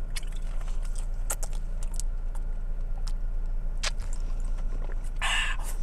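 Light clicks and rattles as a red plastic cup is handled and drunk from, over the steady low hum of a car cabin, ending in a short breathy exhale after the sip.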